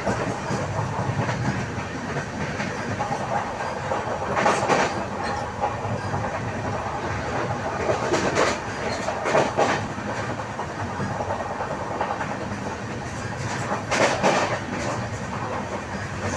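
Coaches of the Lalbagh Express rolling past on the rails with a steady clickety-clack, and several louder bursts of clatter a few seconds apart. The train is running with a flat wheel, which gives its track sound a beating thump.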